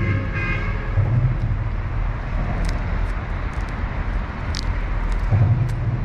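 Steady low rumble of traffic on the elevated highway deck overhead, swelling about a second in and again near the end.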